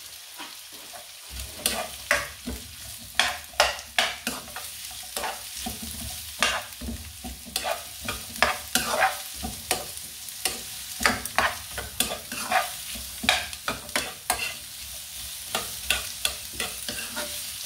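Ginger, garlic and onion sizzling in a frying pan while a cooking utensil stirs them, scraping and knocking against the pan in irregular clicks over a steady high hiss.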